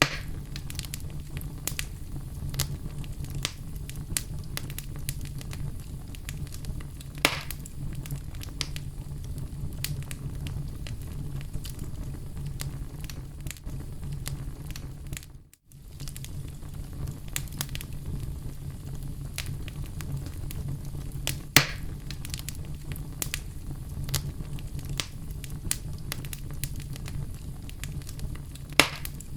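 Oak logs burning in a fireplace: a steady low rumble of flame with constant small crackles and an occasional louder pop, three of them standing out. The sound cuts out for a split second about halfway through.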